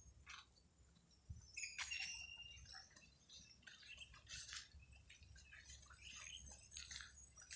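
Faint outdoor ambience with scattered soft rustles and ticks, and a brief high chirp about two seconds in.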